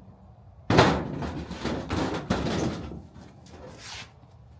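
Sheet metal banging and rattling as a bent piece of duct metal is handled and fitted: a sudden loud bang just under a second in, then a few lighter knocks.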